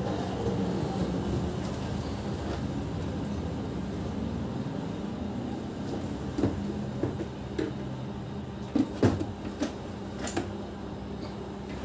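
Hard plastic parts of a water purifier cabinet being handled and fitted together: scattered clicks and knocks, several in the second half with the loudest cluster near the end, over a steady low hum.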